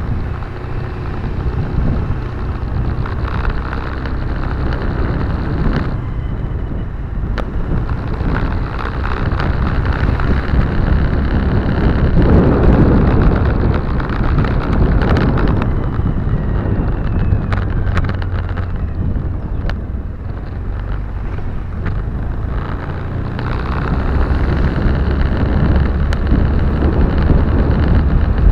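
Car driving along a road, heard from inside the cabin: a steady rumble of engine, tyres and wind, swelling louder about twelve seconds in, with scattered light clicks.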